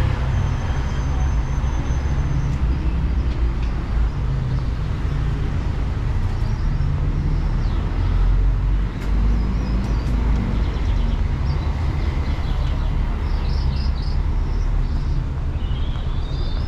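Steady city street ambience, mostly traffic noise from vehicles on the adjacent road, with a few high chirps near the end.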